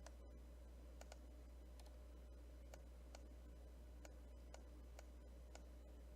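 Faint computer mouse clicks, about a dozen at an uneven pace of roughly two a second, over a steady low hum.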